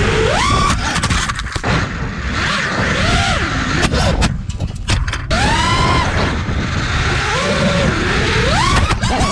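FPV racing quadcopter's brushless motors whining, the pitch sweeping up and down with the throttle, over heavy wind rush on the microphone. The whine drops away briefly about halfway through, then climbs steeply again.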